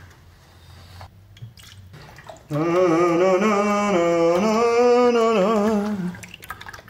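Soft clicks and handling noise as a milk carton's cap is opened, then a person's voice holds one long wavering sung note for about three and a half seconds while milk is poured from the carton into a pot.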